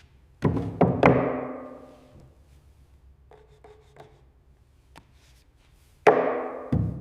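Knocks struck on wood, each ringing out briefly: a quick cluster of three hard knocks about half a second in, a few light taps in the middle, and another hard knock followed by a dull thud about six seconds in.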